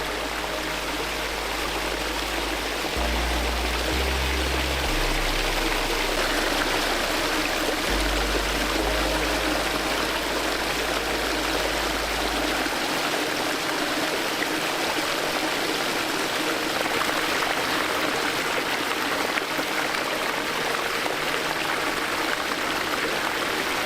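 Backyard pond waterfall running steadily, water splashing and trickling over the rocks. Low held notes of background music sound under it and stop about halfway through.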